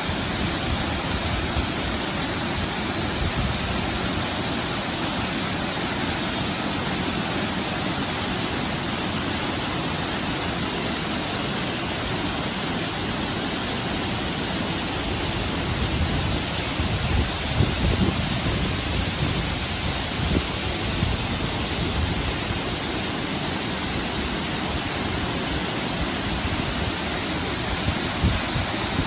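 Baker's Falls, a 20 m waterfall, giving a steady, even rush of falling water. A few brief low thumps come about halfway through and again near the end.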